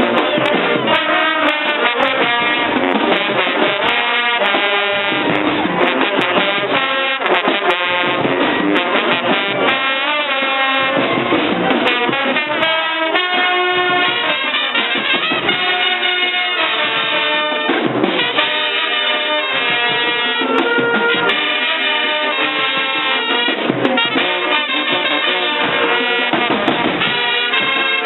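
A live brass band playing, with trumpets and trombones carrying the tune over drums.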